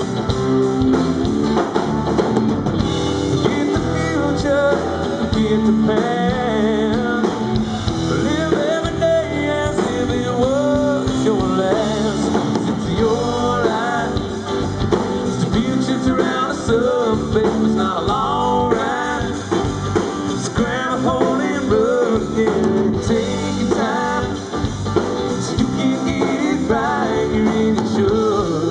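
Live rock band playing a song with drum kit, electric guitar and acoustic guitar, a melodic line bending and wavering in pitch over the steady accompaniment.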